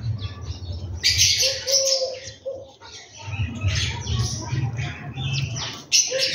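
House sparrows chirping in short bunches of rapid chirps, three times, over a low rumble.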